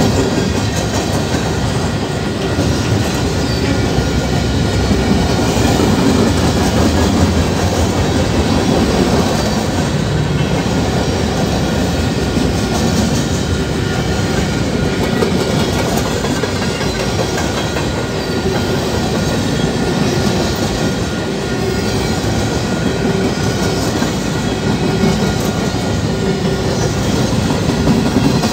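Freight train cars rolling past at about 30 mph: a steady rumble of steel wheels on rail, with clickety-clack as the wheels cross rail joints.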